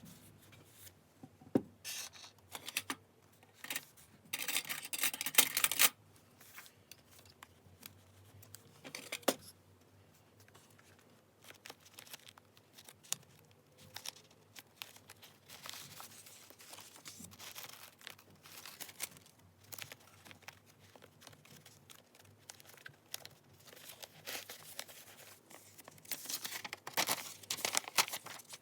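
Paper being handled close up for journal decorating: rustling, crinkling and tearing of paper in many short bursts, with longer, louder stretches of tearing about four seconds in and again near the end.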